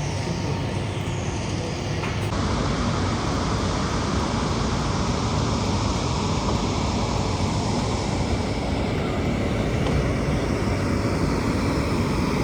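Steady, unbroken drone of heavy construction machinery running, a diesel engine at constant speed with no distinct knocks or changes.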